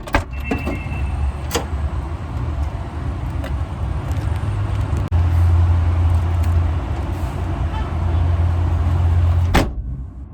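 Steady low rumble of a car in motion, with a few knocks near the start and a sharp thump near the end, after which the rumble drops away suddenly.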